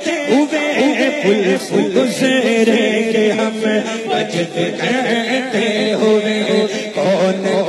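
Devotional Urdu naat sung with several voice lines overlapping and no beat.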